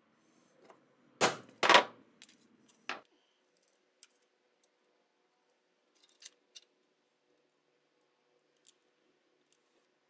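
Two sharp, loud knocks about half a second apart, then a lighter one a second later, from a metal hand punch being worked on a paper scale dial; a few faint clicks of paper handling follow.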